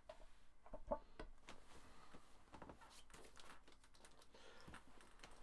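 Faint scattered clicks and small taps of hands handling wires and a tool in an electric guitar's control cavity, with one sharper click about a second in.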